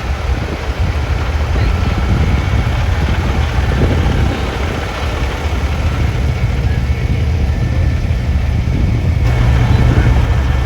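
Big-rig truck engines idling, a steady low rumble that grows a little louder about nine seconds in.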